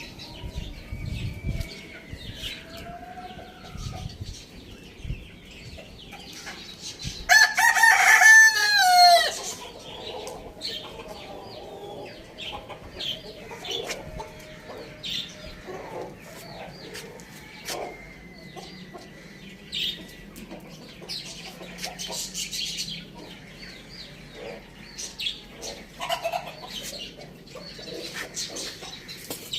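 A rooster crows once, a long call of about two seconds starting some seven seconds in, the loudest sound here. Around it, chickens cluck in short, scattered calls.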